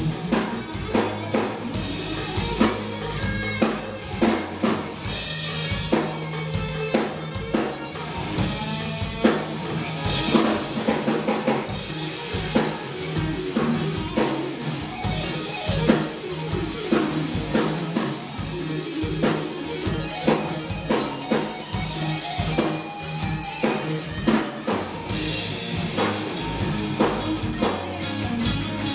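Live instrumental rock from electric guitars and a drum kit, played continuously with steady drum hits and cymbals washing in about twelve seconds in and again near the end.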